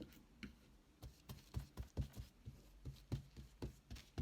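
Faint, irregular light taps and knocks of hands working with paper and craft materials on a tabletop, about two to three a second.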